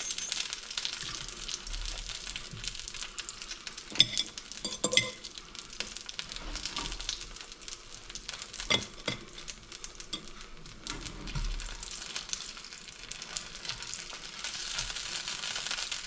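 Fish fingers sizzling in hot oil in a frying pan, a steady crackling hiss. A few sharp knocks and scrapes of a utensil against the pan come about four to five seconds in and again around nine seconds, as they are lifted out.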